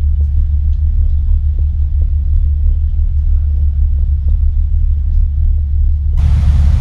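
Steady low rumble of the Fast Cat M9 ferry's engines heard inside the passenger cabin under way. About six seconds in it switches suddenly to a loud hiss of wind and sea out on the open deck.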